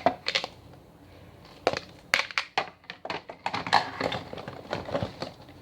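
Plastic Play-Doh toy pieces being handled and taken out of their packaging: an irregular run of light clicks, clacks and crinkles.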